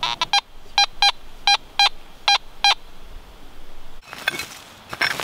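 Fisher F19 metal detector giving a target signal: three pairs of short, same-pitched beeps as the search coil is swept back and forth over a buried target. A few sharp clicks and rustles near the end.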